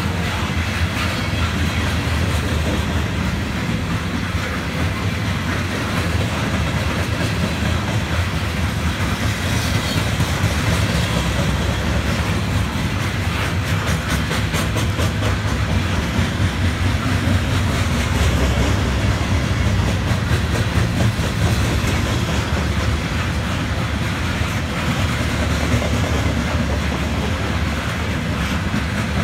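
CSX coal train's open hopper cars rolling past at close range: a steady rumble with the repeated clickety-clack of wheels over the rail joints.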